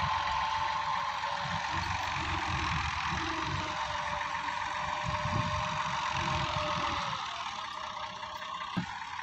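A 260 tractor's diesel engine running under heavy load as it drags a fully loaded sand trolley out of mud. The engine sound eases off about seven seconds in, and there is a single short click near the end.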